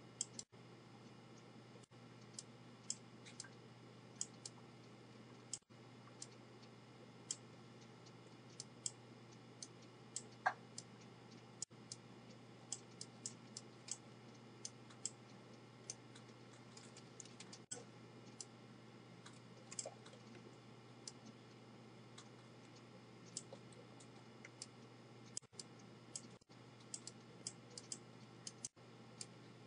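Computer mouse buttons clicking faintly and irregularly, many short clicks at uneven intervals, as a drawing is outlined with the mouse in MS Paint. A steady low hum runs underneath.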